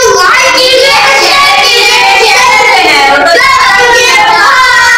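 A song sung in a child's voice, loud and continuous, with its melody sliding up and down.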